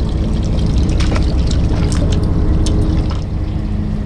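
Fishing boat's engine running steadily, with water sloshing and trickling around the hull and a few small scattered clicks.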